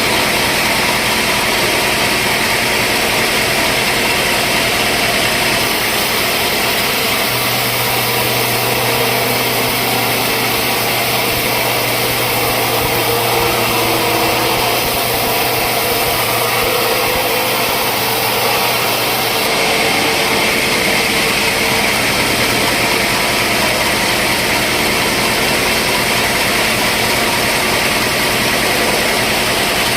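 Sawmill machinery running: a loud, steady mechanical noise, with a low hum that comes in about seven seconds in and stops around twenty seconds.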